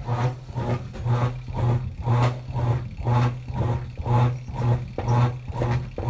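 Washing machine running, its motor hum swelling and fading in a steady rhythm about twice a second.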